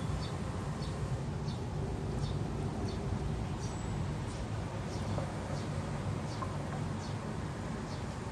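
Short high chirps repeating about every two-thirds of a second from a small calling animal, over a steady low outdoor rumble.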